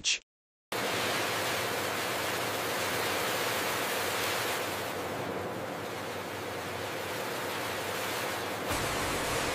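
Steady rushing hiss of a rotating stainless-steel capsule bowl with fish oil softgel capsules swirling in it, starting just under a second in and turning a little deeper near the end.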